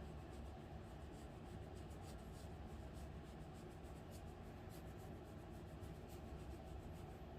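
Quiet room tone with a steady low hum and scattered light clicks and scratching.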